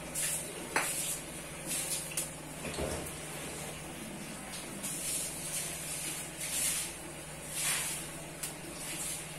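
Gas stove burner running under a kadai of heating oil: a steady low hum and hiss, with short hissing bursts now and then. A click comes near the end as the burner knob is turned.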